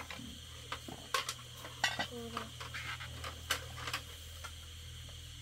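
Eating utensils clinking and tapping against ceramic bowls during a meal: a dozen or so light, sharp clicks, scattered irregularly and thinning out after about four seconds.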